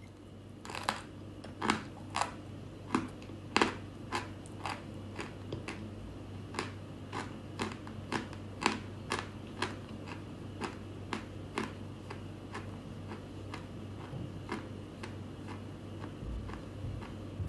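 Chalk being bitten and chewed: a run of sharp crunches, roughly one to two a second, loudest in the first few seconds and lighter after.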